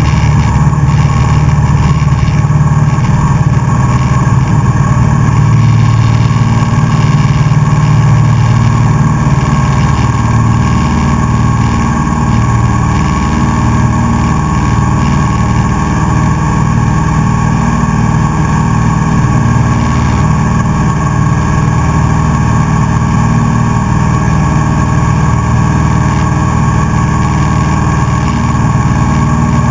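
Single-engine Cessna's piston engine and propeller running steadily at takeoff power, heard from inside the cockpit, through the takeoff roll on grass and the climb-out.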